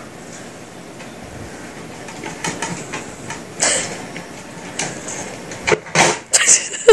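A cat leaping from the top of a wooden cabinet, with a quick run of knocks and thumps near the end, the last one the loudest, over a steady low hiss.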